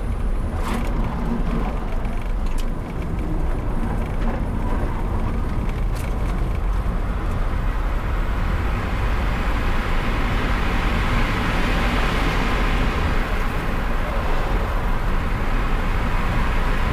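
An electric car driven flat out on a race track: steady tyre, road and wind noise over a low rumble, with the hiss growing stronger about halfway through.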